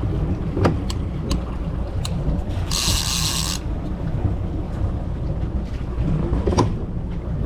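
Fishing reel clicking now and then as a hooked bluefish is played, over a steady low rumble of wind and water, with a short hissing burst about three seconds in.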